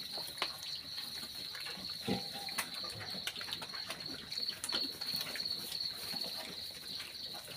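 Piglets feeding from a bowl: irregular chomping, snuffling and knocks at the bowl, with a brief grunt about two seconds in. A steady, high insect chirr, like crickets, runs underneath.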